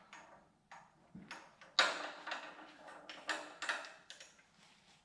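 Loose steel transmission parts, 6th gear and its bearing just freed from the shaft, clinking and knocking as they are caught and handled: a series of sharp metallic knocks, the loudest about two seconds in.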